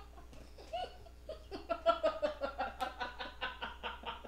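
Women laughing with hands over their faces, building about a second in into a run of quick, even pulses of laughter, about four or five a second.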